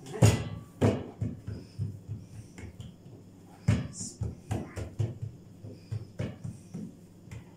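Dull thumps of hands patting and rolling a date-filled dough log on a silicone baking mat. There is a louder knock just after the start, then a run of softer thumps several a second, with a pause of about a second in the middle.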